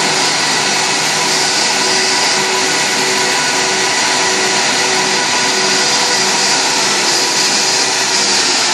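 Airbus A319's turbofan engines at idle while it taxis: a loud, steady whine with several held tones, one of them high, over an even hiss.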